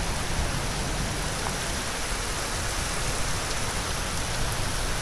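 Heavy rain pouring steadily onto a flooded street, an even hiss of rain falling on standing water.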